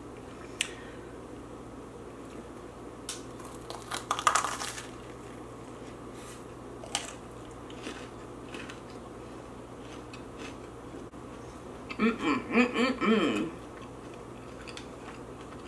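Eating sounds from a bagel with cream cheese topped with crunchy hot Cheetos: scattered clicks and a short burst of crunching about four seconds in. Near the end comes a short pulsed vocal sound from the eater.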